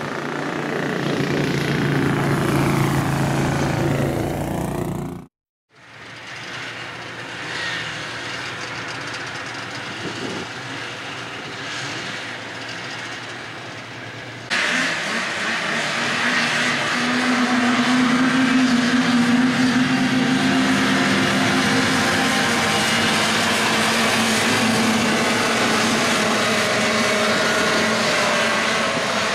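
Engines of 6x6 amphibious ATVs running: first a lone machine driving on a dirt track, then, after the sound cuts out briefly about five seconds in, a louder pack of them racing together from about halfway through.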